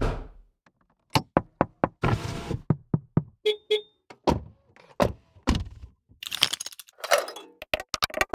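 A quick run of short, unrelated foley sound effects, mostly knocks and thunks one after another, with a couple of brief swishing noises among them.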